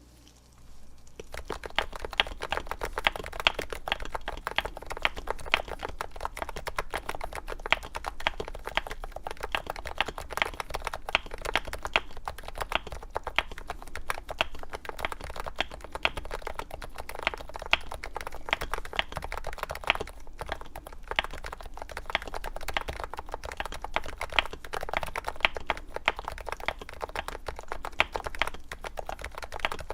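Continuous fast typing on a Topre keyboard, a Novatouch in a Norbatouch case with 45 g domes, number 3 silencing rings, Sorbothane filling and MT3 keycaps: a dense run of keystrokes starting about a second in, over a low steady hum.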